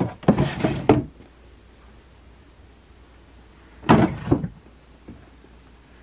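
Empty desk drawers being pulled open and pushed shut: a quick cluster of knocks and thuds in the first second, and another about four seconds in.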